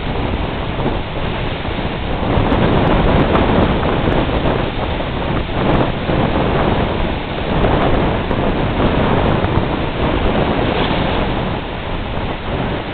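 Strong wind buffeting the microphone over the steady wash of breaking surf on a big lake.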